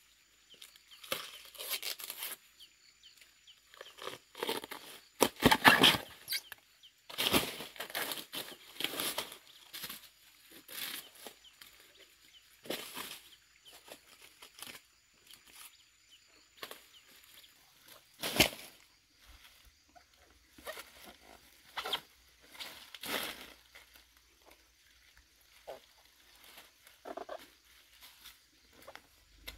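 Tearing and rustling as the outer sheaths are peeled off a felled banana trunk, mixed with the crackle of dry banana leaves being handled and stepped on. It comes in irregular bursts, the loudest a few seconds in, with one sharp snap midway.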